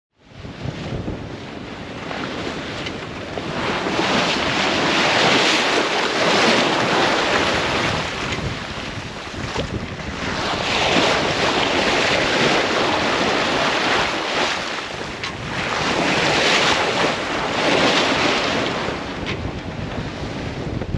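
Open-ocean wind and waves rushing past a sailing yacht under way, with wind buffeting the microphone. The rush swells and eases three times, about every five or six seconds, as the boat rides the swells.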